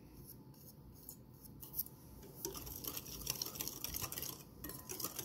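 Wire whisk stirring a runny batter in a glass bowl. A few faint taps come first, then from about two seconds in, rapid light clicking and scraping as the wires strike the glass.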